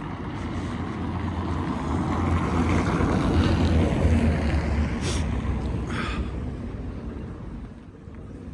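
A vehicle passing on the street: a rush of road noise that builds for about three seconds and then fades away.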